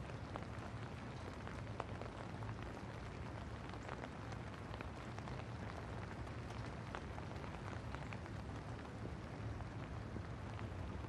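Steady rain falling: an even hiss dotted with many scattered sharp drop ticks, over a low steady hum.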